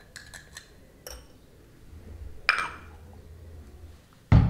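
A metal spoon tapping and clinking against a ceramic bowl as thick flaxseed gel is scraped into it: a few light taps, then one ringing clink about halfway through. Near the end comes a loud thump.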